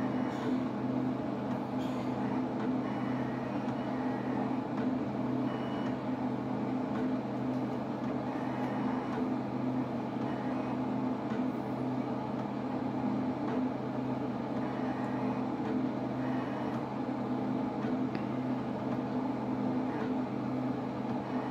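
HP 7550A pen plotter running a demo plot: a steady electric hum and whine from its motors, with a few faint clicks as the pen carriage works.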